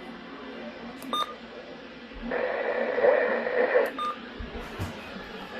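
Radio audio: a short electronic beep, then about a second and a half of loud hiss, then another short beep.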